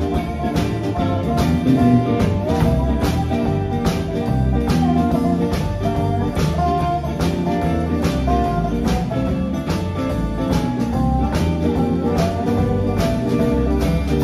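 Live rock band playing an instrumental passage: electric guitars over electric bass and a drum kit keeping a steady beat.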